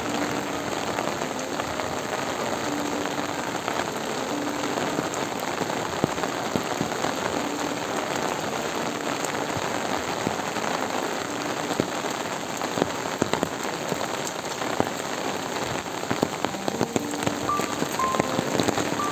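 Steady rain falling on surfaces: an even hiss of rain with many scattered sharper drop ticks.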